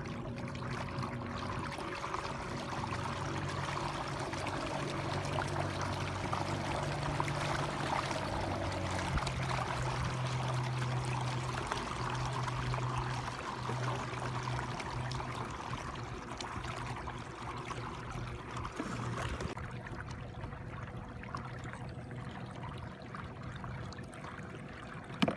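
Water rushing and trickling along the hull of a kayak under way, pulled by its front-mounted electric trolling motors. A steady hum runs underneath; its low part drops away about three-quarters of the way through.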